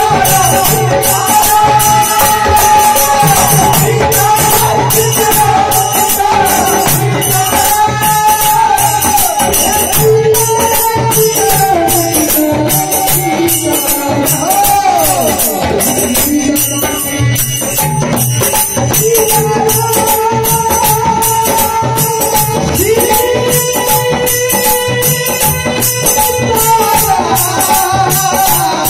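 Hindu devotional kirtan through microphones: male voices singing over a harmonium's held chords and a dholak drum's rhythm, with steady metallic jingling percussion.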